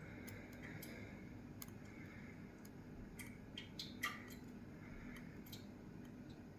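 Faint, scattered light clicks and taps of the disassembled lock's parts being handled, with one louder click about four seconds in.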